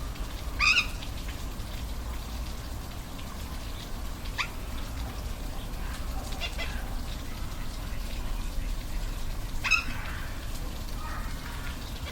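Steady rush of a waterfall, with a few short, high animal calls over it: a louder call about a second in and another near the end, and fainter chirps between.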